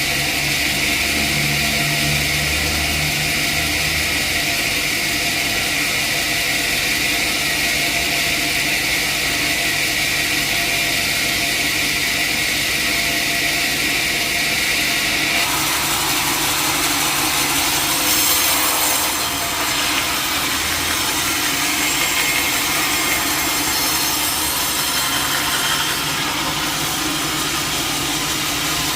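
Sawmill saw running steadily as it cuts through a teak log. About halfway through, the noise turns brighter and hissier.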